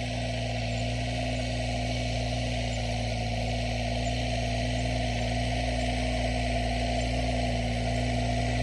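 Katsu multipurpose mini tractor's small engine running at a steady, even hum as it drives up a dirt track, growing slightly louder as it approaches.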